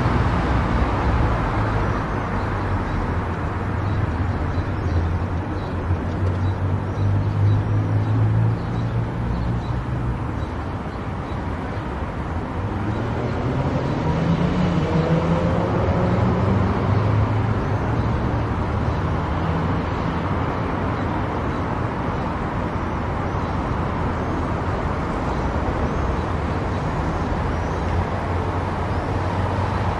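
Car driving on an expressway: steady tyre and road noise with a low engine hum. The engine note fades a little before halfway, then rises in pitch for a few seconds and settles.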